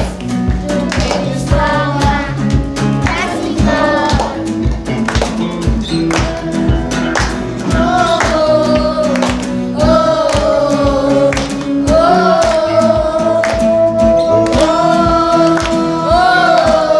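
A group singing a gospel song over a steady beat with bass and keyboard accompaniment.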